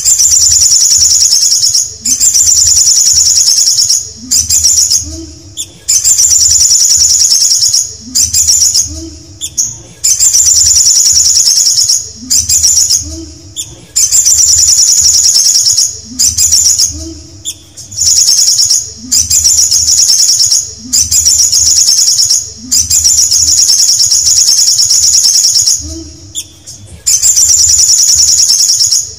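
Male olive-backed sunbird singing: loud, high, fast-trilled phrases of one to two seconds each, repeated again and again with short pauses between them.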